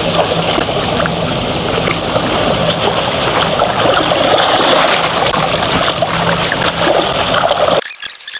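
Muddy creek water splashing and sloshing as people wade and grope through it by hand. The sound is steady and stops abruptly near the end.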